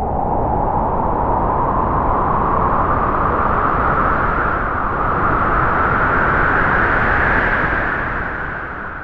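A gust of wind: a rushing noise whose pitch rises slowly as it swells, then dies away near the end.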